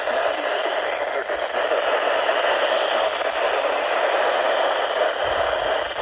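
Radio receiver static: a steady hiss from a weak station that isn't coming in, with no alert tones or clear voice getting through.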